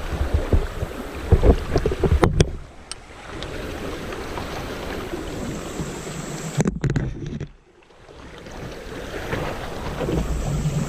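Kayak on a flooded, fast-running creek: rushing water, with wind buffeting the microphone and a couple of sharp knocks. The sound drops out briefly about three quarters of the way through.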